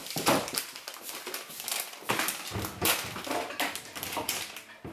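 Foil snack bag of Corn Nuts crinkling and crackling in the hands as it is squeezed and pulled at the top to tear it open, in irregular rustles with several sharper crackles.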